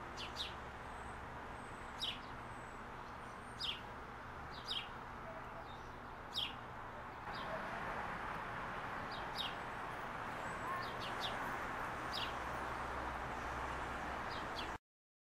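Small birds chirping outdoors: short, high, downward-slurred notes, one or two every second or so, over a steady background hiss. The sound cuts off abruptly near the end.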